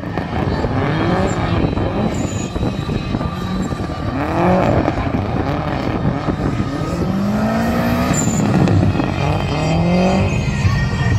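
Drift car's engine revving hard, its pitch climbing and dropping several times as the car slides sideways around the course, with tyres squealing on the tarmac.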